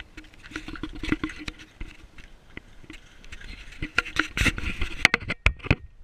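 Handling noise from an action camera being carried and fixed in place: irregular knocks, clicks and scrapes, loudest near the end. A short, steady high tone sounds about five seconds in.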